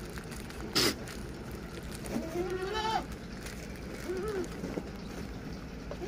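Rajanpuri goats at a feed trough: one goat gives a bleat a little over two seconds in, and another gives a shorter call about four seconds in. A single sharp, brief noise sounds about a second in, louder than the calls.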